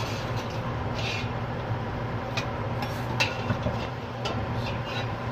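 Kitchen stove-side sound: a steady low hum with a few scattered light clicks and pops from a pot of mutton and potato masala cooking.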